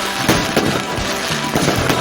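Fireworks going off in a quick series of sharp bangs and crackles, the loudest about a quarter of a second in, with music playing underneath.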